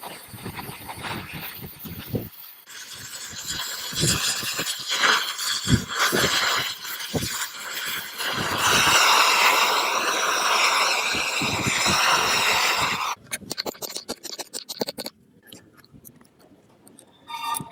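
Rough scraping and rubbing on metal in uneven strokes. A dense, steady stretch past the middle is the loudest part. It breaks off suddenly into scattered short scrapes and knocks.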